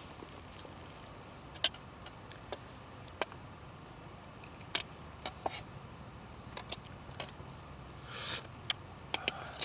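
Irregular sharp clicks and light taps over a low steady background, with a brief rustle about eight seconds in.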